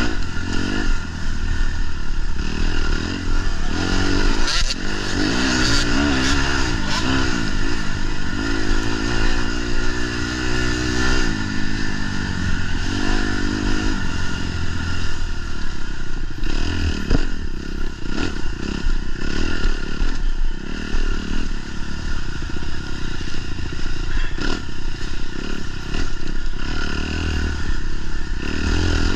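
Dirt bike engine ridden hard in a race, its pitch rising and falling again and again as the rider works the throttle and gears. Clattering runs under it, with a few sharp knocks.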